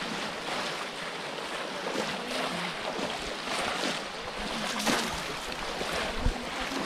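Shallow, muddy water splashing and sloshing as several people wade through it and plunge bamboo cone fish traps into it, with a louder splash about five seconds in.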